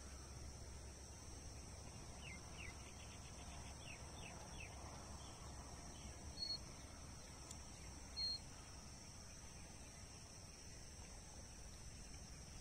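Faint countryside ambience: a steady high insect drone with bird calls. A run of short falling chirps comes a couple of seconds in, and two short high peeps about two seconds apart are the loudest sounds.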